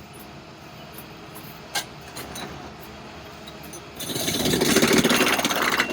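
Railroad tie-replacement machinery working on the track: a sharp click a little under two seconds in, then a loud rattling, hissing burst about two seconds long that stops near the end.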